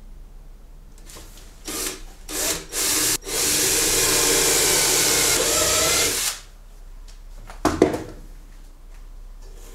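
Cordless drill boring into a wooden rod: a few short spins, then about three seconds of steady drilling through the wood. A short, loud knock follows near the end.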